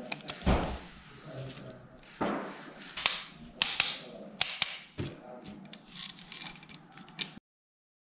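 Hand-handling of a mixer-grinder motor's metal frame and parts and a pair of pliers: irregular sharp clicks and knocks of metal on metal, with rustling between them. The sound cuts off suddenly near the end.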